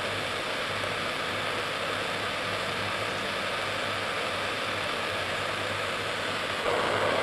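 Gas burner flame hissing steadily, with a low hum underneath; the rushing gets a little louder near the end.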